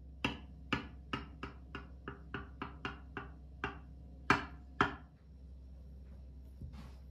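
Kitchen utensils tapping: a quick run of about a dozen light taps, roughly three a second and growing fainter, as cocoa is shaken from a small strainer over tiramisu. About a second later come two louder knocks half a second apart as a knife is cut down through the tiramisu to the bottom of the glass baking dish.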